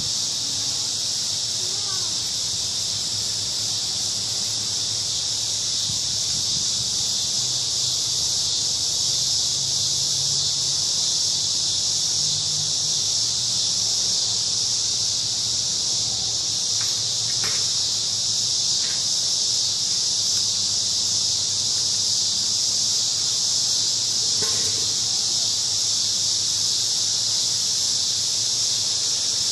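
A chorus of crickets singing in a big cottonwood tree: a steady, high-pitched chorus with no break.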